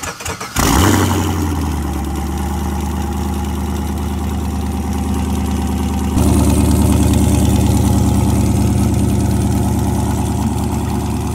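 The cammed 5.3-litre V8 of a twin-turbo Chevrolet Silverado is cranked by its starter and fires about half a second in with a loud flare. It then settles into a steady idle on a cold start. About six seconds in, the idle grows louder.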